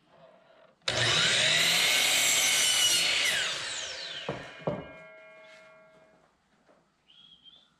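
DeWalt sliding compound miter saw starting up about a second in and cutting through a wooden board for about two seconds. The blade then winds down with a falling whine, and two sharp knocks come while it is still spinning down.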